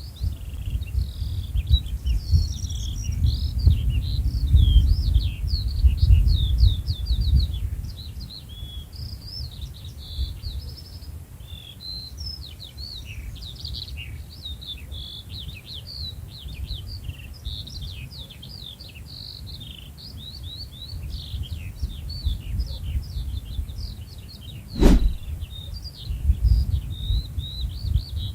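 Many small birds chirping and singing together in a dense, overlapping chorus of quick high notes, over a low rumble that is strongest for the first several seconds. One sharp click sounds near the end.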